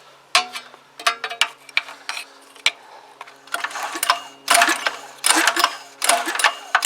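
Recoil pull-starter of a small petrol pressure-washer engine being yanked repeatedly, the cord and engine turning over in quick strokes, with the spark plug out to check for spark. A few clicks and knocks of handling come before the pulls start about halfway through.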